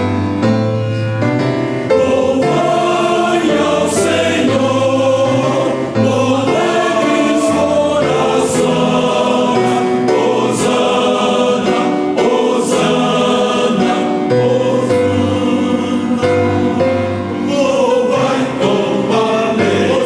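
A choir singing a slow piece of religious music in held, sustained chords.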